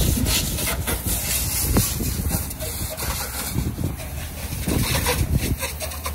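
High-pressure washer jet spraying the tyres and aluminium wheels of a truck trailer: a steady hiss of spray with water spattering off the rubber and metal, dropping a little around the middle.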